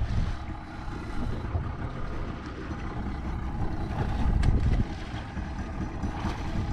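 Steady low rumble of wind and boat noise on an open skiff, with a hooked dorado (mahi-mahi) splashing at the surface beside the boat in the second half.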